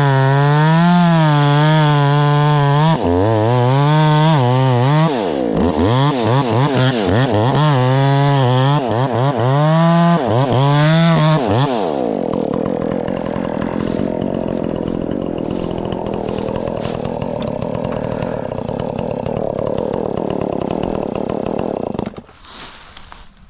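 Two-stroke chainsaw at high revs cutting into a tree trunk, its pitch rising and falling as it works the cut. About halfway through the note drops to a lower, rougher, steadier sound, and the saw cuts off suddenly near the end.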